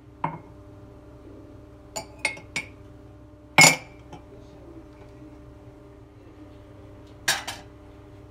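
Ceramic mugs and a glass tumbler being set down and stacked on a countertop: a string of short clinks, the loudest about three and a half seconds in and a quick double clink near the end.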